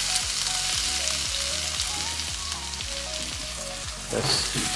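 Hot cooking oil in a pan sizzling hard as spices and vegetables fry, starting suddenly just as they go in and then holding steady. Quiet background music with a steady beat plays under it.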